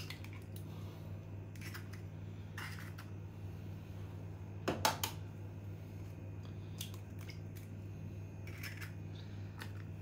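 Eggs being cracked on the rim of a plastic measuring jug: a few scattered sharp taps and shell cracks, the loudest a double knock about five seconds in, over a steady low hum.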